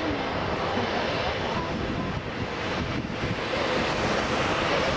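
Boeing 737-800 airliner's CFM56-7B turbofan engines running as it rolls down the runway for takeoff: a steady jet noise.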